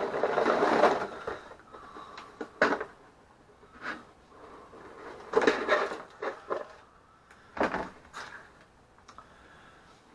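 Cardboard model-kit box being handled and opened. A longer rubbing scrape of the lid comes first, then short knocks and scrapes as the box is moved.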